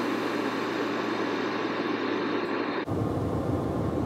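Steady background noise inside a car cabin, an even hiss with a faint low hum. Its sound changes abruptly about three seconds in.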